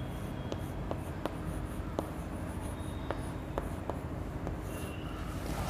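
Chalk writing on a chalkboard: short scratchy strokes and several sharp taps of the chalk against the board, over a steady low hum.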